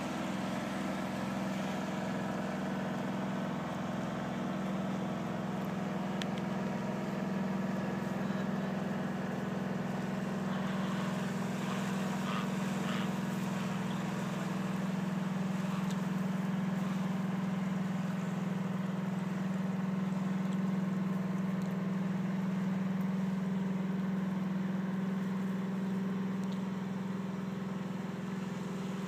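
Shrimp trawler's diesel engine running steadily as the boat motors past, a low, even drone that swells slightly past the middle.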